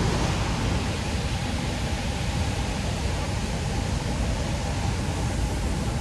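Steady rush of falling water from Iguazu Falls, an even noise with no let-up.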